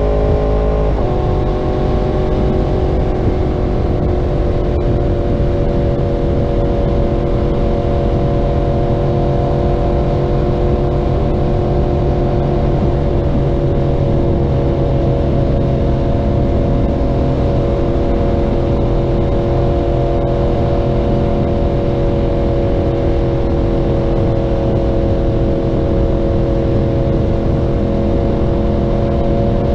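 Yamaha R1's inline-four engine through a Graves aftermarket exhaust, running under way at a steady pitch. About a second in, the pitch drops suddenly, then holds nearly level for the rest, sagging slightly.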